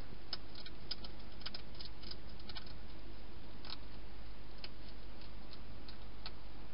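Wild hedgehog crunching its food: a quick run of sharp clicking crunches, thinning to occasional single clicks after about three seconds, over a steady low hum.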